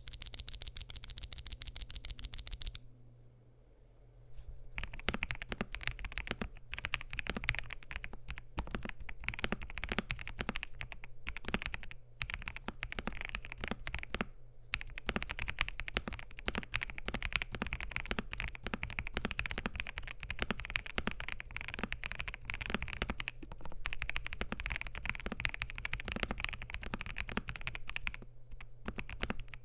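Typing on an Epomaker EK98 mechanical keyboard with lubed and filmed WS Morandi switches and ABS keycaps: a dense, uneven patter of keystrokes with a few short pauses. It opens with a brief run of rapid, evenly spaced sharp clicks, then a pause of about two seconds before the typing starts.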